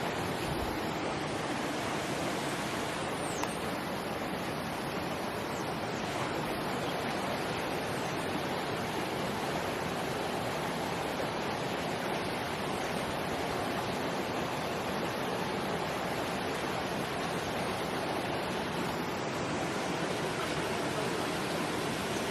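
Steady rushing of a rainforest river pouring over the rock slides and small falls of a natural waterslide.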